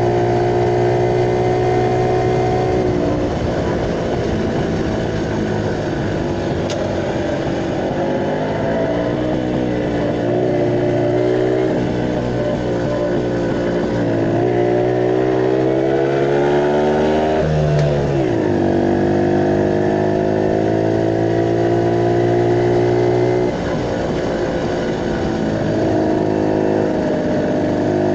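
Motorcycle engine running under way, heard from the rider's seat. Its pitch drops a few seconds in, climbs steadily through the middle, falls sharply after about eighteen seconds, then runs steady with another dip near the end.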